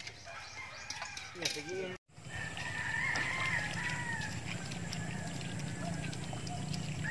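A rooster crowing once in one long call about three seconds in, over a steady low hum, with faint voices in the first two seconds before a brief drop-out.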